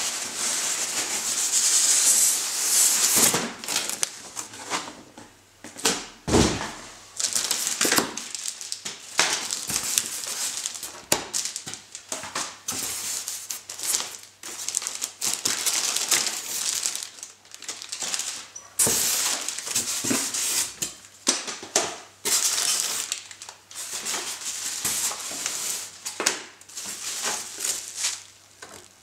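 Packaging being handled by hand: cardboard box sliding and scraping, plastic bags crinkling and rustling, with a run of knocks and clicks as parts are lifted out of a foam packing box.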